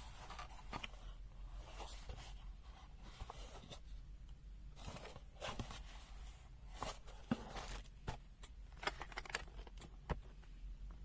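Irregular rustling and light clicks as the multimeter's packaging and accessories are handled, with a few sharper ticks around the middle and toward the end.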